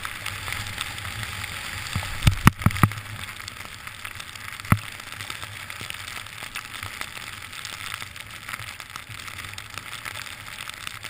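Snowboard sliding over snow, a steady hiss, with a quick cluster of sharp knocks a little over two seconds in and a single knock a couple of seconds later.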